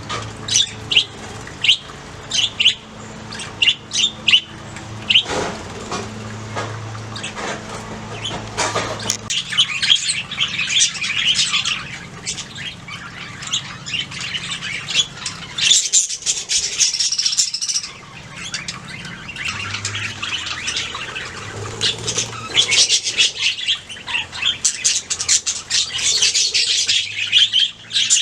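Budgies chirping and warbling continuously, with quick sharp calls and chatter coming thick and fast.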